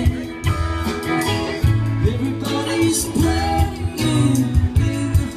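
Live rock band playing: electric guitar, low bass notes and drum hits, with singing over them.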